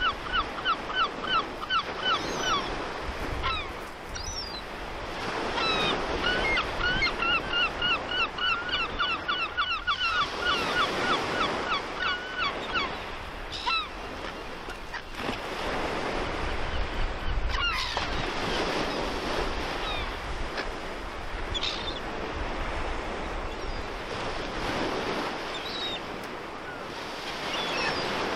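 Gulls calling in quick runs of repeated yelping notes, about five a second, over the steady wash of sea waves that swells every few seconds. Later the calls thin out to scattered single cries.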